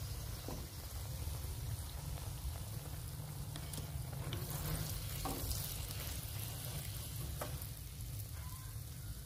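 Flour-battered mushrooms deep-frying in hot oil: a steady sizzle with a few sharp pops and crackles scattered through it.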